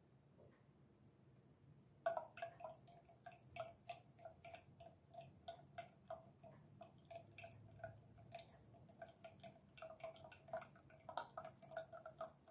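Filtered cooking oil dripping through muslin cloth into a stainless steel bowl: a faint, fast, irregular patter of small plinks, all at one pitch, starting about two seconds in.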